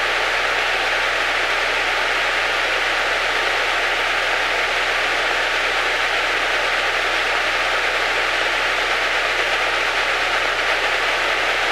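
Steady, unchanging hiss on an aircraft's radio/intercom audio feed, with a faint steady tone running through it: the radio hissing fault in the audio system.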